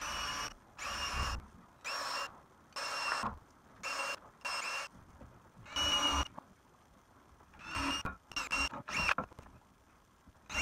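Cordless drill boring center holes in pine boards: the motor whines up in about ten short trigger pulls, roughly one a second, each under a second long.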